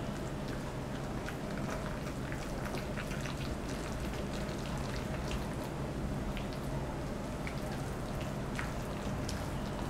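Silicone spatula stirring and mashing a wet tofu and vegetable mixture with flour in a stainless steel bowl: a steady run of small wet clicks and squelches.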